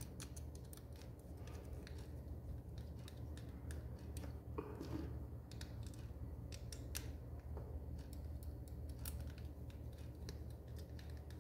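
Small screwdriver driving screws into the plastic cover of an inline cord switch: faint, irregular clicks and scrapes of the tip on the screws and plastic, over a low steady hum.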